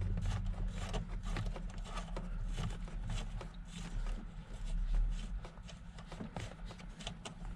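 Scattered small clicks and light metallic rattles of hand tools and loosened hardware while a tractor's cab solenoid is being removed, over a steady low hum.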